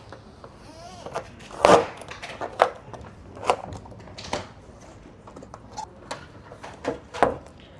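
Colour-shift paint protection film being peeled off a car's front fender: sticky crackles and snaps, irregular, about one a second.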